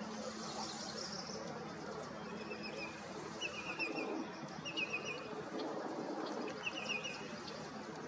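Small bird chirping: short, rapid trills of four or five high notes, repeated several times. The trills sit over a steady wash of wind and water noise.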